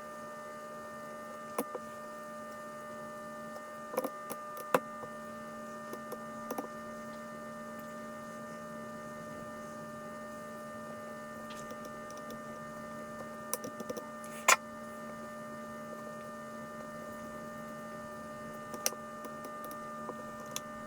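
A steady electrical hum made of several fixed tones, with a dozen short sharp clicks scattered through it; the loudest click comes about two-thirds of the way in.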